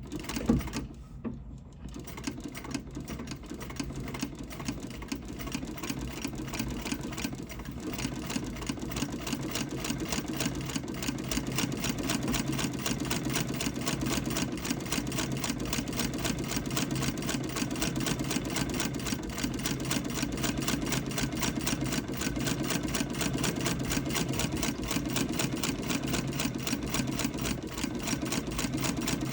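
Antique Davis vertical feed treadle sewing machine stitching cotton fabric: a thump about half a second in, then a rapid, even mechanical clatter of the needle and walking-foot mechanism. It builds up over the first several seconds as the treadle gets going, then runs steadily.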